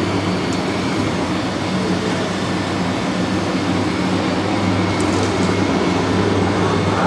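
Radio-controlled model construction machines running: a steady mechanical drone with a low hum under it.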